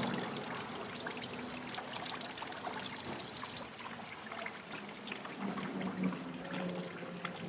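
Water trickling and splashing steadily into a stone fountain basin.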